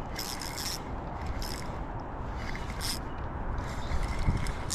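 Fishing reel being cranked while a hooked shad is played, giving short scraping bursts about once a second over a steady rush of river water.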